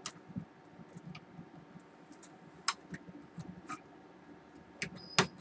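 Scattered small clicks and light knocks of hands handling the wires, connectors and plastic casing of an opened UPS, a few irregularly spaced taps, with a short high beep near the end.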